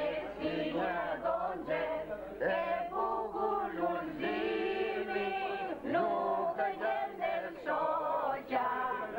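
A group of men and women singing together at a table, a song of long held notes.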